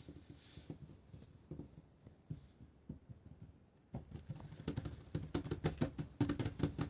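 Rapid, irregular tapping and clicking close to the microphone: a few scattered taps at first, then a dense run of quick clicks and knocks from about four seconds in.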